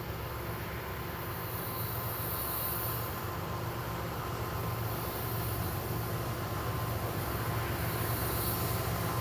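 CSX freight train's diesel locomotives running with a steady low hum, slowly growing louder as the train nears.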